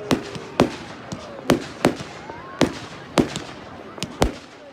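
Fireworks bursting in the sky, a quick irregular run of about eight or nine sharp bangs.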